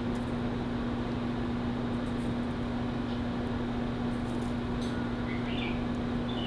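Steady electrical hum with a fan-like hiss, a few faint ticks, and a faint wavering high chirp from about five seconds in.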